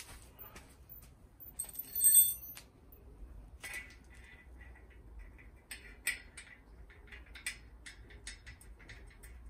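A metal piece clinks with a brief bright ring about two seconds in, followed by scattered light clicks and taps of assembly hardware and tools being handled.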